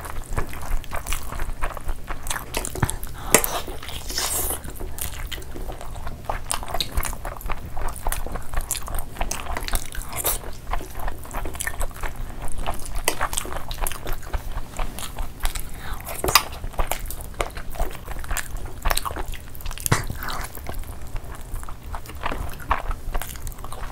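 Close-miked eating by hand: fingers squelching rice into thick curry gravy, with wet chewing, biting and lip smacks as mouthfuls of rice, chicken and fish are eaten. A dense, irregular patter of small wet clicks that keeps going.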